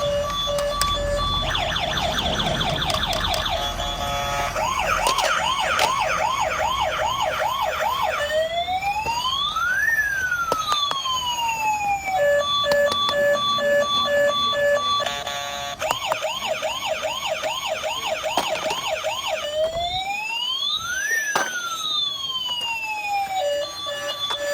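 Electronic toy siren cycling through its patterns: a few steady beeps, a fast warble, a quicker yelp, then a long wail rising and falling. The whole sequence plays twice.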